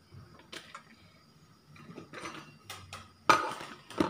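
A few sharp clinks and knocks of kitchen utensils against an aluminium wok, the loudest about three seconds in.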